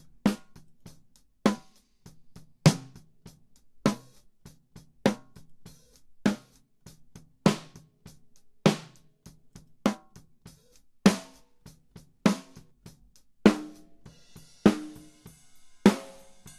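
Soloed snare drum playing a steady backbeat, one strong hit about every 1.2 seconds with quieter ghost hits and kit bleed in between. It is the original recorded snare layered with a triggered EXS24 sample snare whose tone changes as different acoustic snare samples are auditioned. A higher ringing wash joins near the end.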